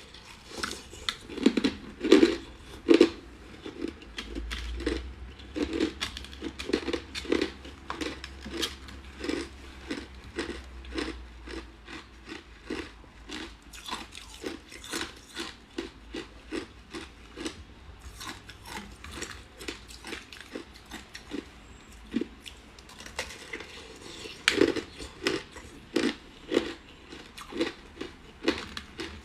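A person biting and chewing ice: a steady series of sharp crunches, about one to two a second, with the loudest bites about two seconds in and again near the end.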